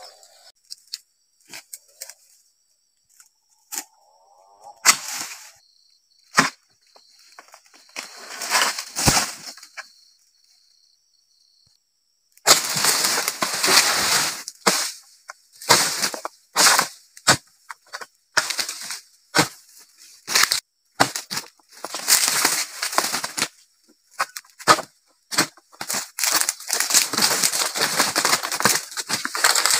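Sharp chops and cracks of a pole-mounted dodos (chisel harvesting blade) striking frond bases high on a tall oil palm. From about twelve seconds in come dense bursts of rustling and crashing as the palm fronds are shaken and cut loose.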